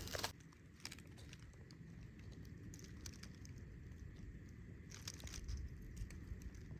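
Faint low wind rumble with scattered small clicks and crackles.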